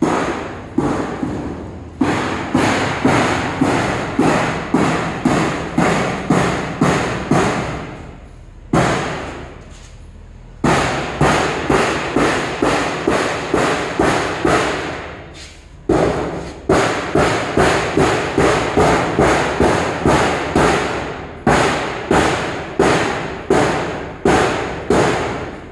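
A hammer beating a long sheet-metal piece, about two blows a second, each with a brief metallic ring. The blows stop twice for a second or two, then start again.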